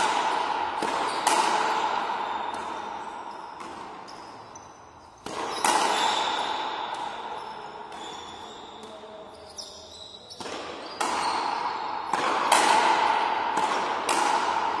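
A frontenis rally: the rubber ball is struck by stringed rackets and smacks against the frontón wall, a series of sharp, irregular impacts. Each impact rings on in the big indoor hall's echo, and the hits come thicker towards the end.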